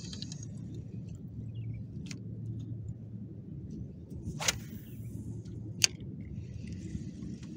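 A few sharp clicks from a spinning reel being handled and its handle knob fitted, with the loudest click about six seconds in, over a steady low rumble.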